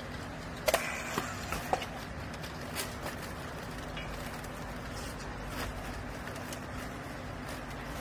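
Handheld strapping tool working a plastic strap around a baled load: a cluster of sharp clicks and knocks about a second in and a lighter one near three seconds, over a steady low machine hum.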